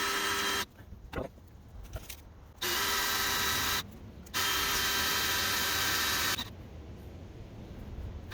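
Electric drill running in three bursts, a short one then two longer ones, boring a hole in steel as the first step of a tap drill for a 5/16 thread.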